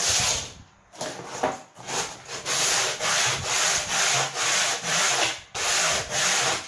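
Sandpaper on a wooden sanding block rubbed back and forth along the cut edge of a corrugated cardboard tray, sanding the edge down level with the board. Rhythmic scratchy strokes, about two to three a second, with a brief pause about half a second in.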